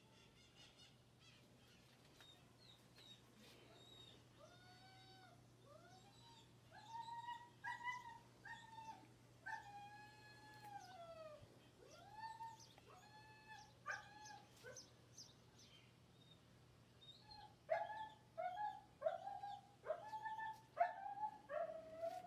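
A domestic animal crying: a long series of short whining calls, each rising and falling in pitch. They begin about four seconds in and come thickest in two bouts, the second starting about seventeen seconds in and louder.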